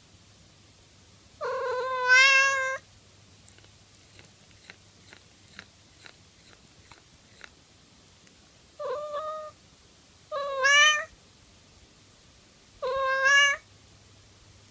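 Domestic cat meowing four times: a longer call about a second and a half in, then three shorter ones in the second half. Faint small clicks come in between.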